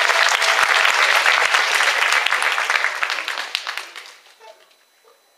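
Congregation applauding: dense clapping from many hands that dies away about four seconds in.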